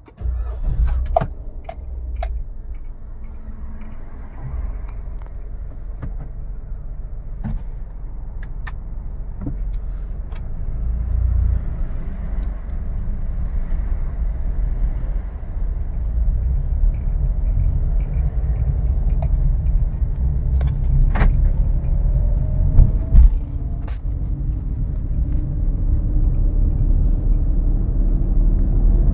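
Car heard from inside the cabin: a low engine and road rumble that comes in suddenly and builds gradually louder, with scattered clicks and light rattles such as keys jangling.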